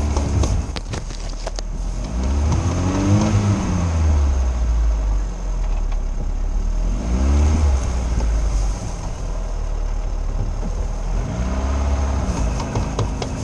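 Lada Niva's four-cylinder engine revving up and easing off three times as the car works over rough off-road ground, with a few knocks and rattles in the first couple of seconds.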